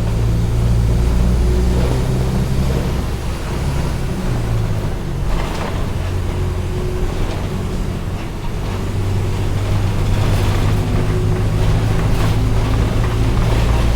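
Mercedes-Benz OF-1722M bus's diesel engine running. The engine note drops about four seconds in and climbs again from about nine seconds on, with a few brief rattling noises over it.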